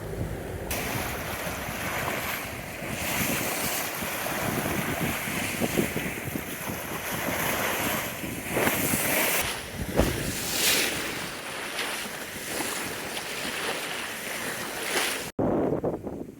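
Rough open sea rushing and surging past a sailboat under way, with wind buffeting the microphone. The rush swells and ebbs in waves, with a few sharper splashes or thumps around the middle, and cuts off abruptly near the end.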